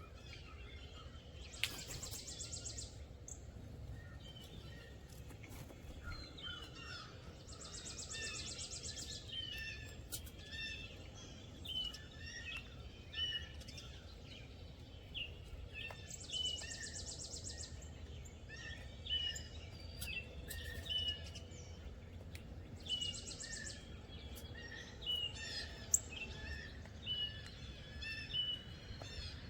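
Songbirds chirping over and over in short repeated notes, with a high buzzy trill coming in about every seven seconds, over a steady low background rumble.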